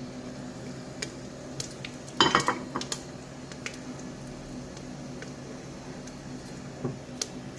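Metal utensils clinking and knocking against a cooking pan as whole spices are added, with a cluster of clatter about two seconds in and scattered single clicks. A steady low hum runs underneath.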